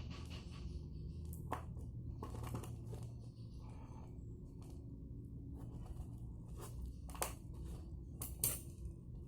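Packaging being handled and opened: scattered tearing, rustling and sharp clicks, the loudest about seven and eight and a half seconds in, over a low steady hum.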